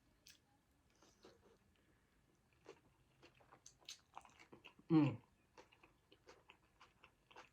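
Close-miked chewing and mouth sounds of someone eating a mouthful of tuna casserole: soft, wet smacks and small clicks. A brief voiced hum with falling pitch comes about five seconds in.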